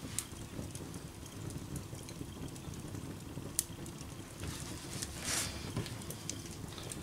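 Wood fire burning in an open fireplace: a low steady rumble of flames with scattered sharp crackles and pops, and a brief hiss about five seconds in.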